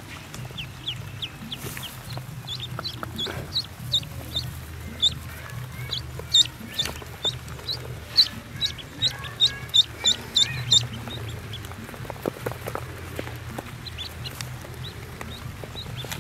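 Newly hatched duckling peeping: a run of short, high peeps, two or three a second, loudest from about six to eleven seconds in, while it is held in a hand.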